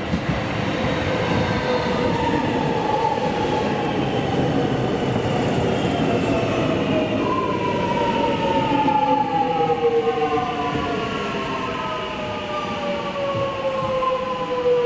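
Electric suburban train running in slowly, wheels rumbling on the rails, with a whine that falls steadily in pitch as the train slows, loudest in the second half.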